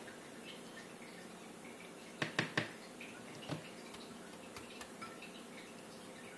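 A utensil clicking against a ceramic plate while whipped topping is spread on toast: three quick clicks about two seconds in, another about a second later, and a couple of lighter ones after that, over a faint steady hum.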